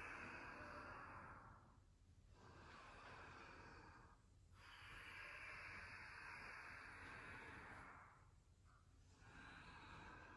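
Faint, slow, deep breaths in and out through the nose and mouth, each lasting two to three seconds, timed to the movement of a yoga sequence.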